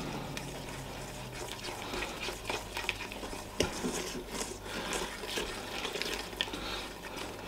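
Plastic-coated whisk stirring a thickening cheese sauce in a cooking pot: a continuous soft swishing with light, irregular clicks and scrapes of the whisk against the pot.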